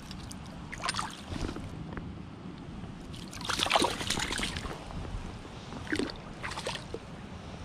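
A trout thrashing in a landing net, splashing water. The loudest splash comes about three and a half seconds in, with shorter splashes near the start and near the end.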